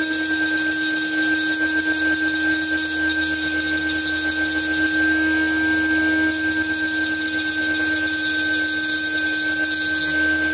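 Small high-speed rotary handpiece with a burr, running at one constant pitch in a steady whine as it grinds the background metal away around engraved scrollwork on a steel pistol barrel.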